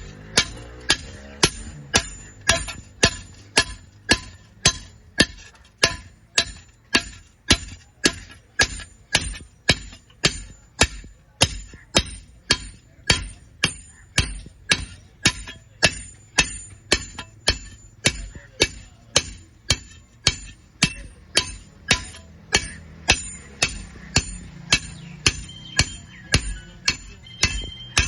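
Hammer striking iron in a steady rhythm of about two blows a second, each blow ringing with a short metallic tone.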